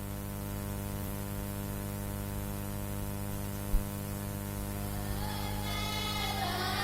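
Steady droning electric hum with static. There is a single brief click near four seconds in, and higher wavering tones come in from about five seconds.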